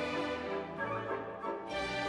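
Background orchestral classical music with bowed strings.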